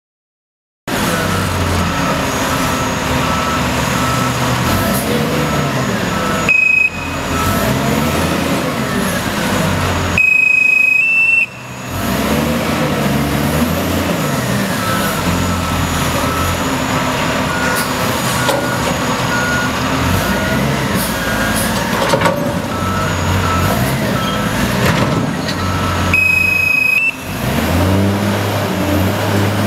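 Taylor TXLC975 loaded-container handler's diesel engine running steadily under way. A repeating back-up beeper sounds faintly through much of it, and a loud, high steady tone sounds three times, each lasting up to about a second and a half.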